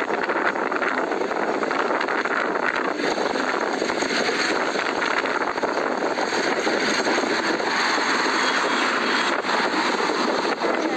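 Steady drone of a moving motor vehicle, engine and road noise running evenly.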